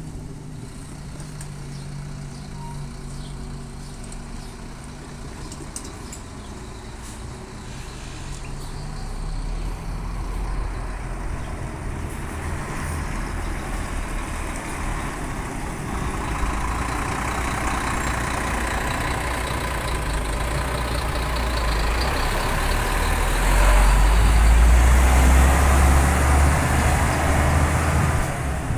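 Intercity coach's diesel engine running at low revs as it pulls out, then growing steadily louder as it accelerates past and away, with a deep rumble loudest near the end.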